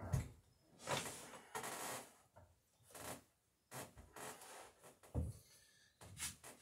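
Small wooden clamping and nailing blocks handled and set down on a wooden plank: a few irregular knocks and thumps, with rubbing and scraping between.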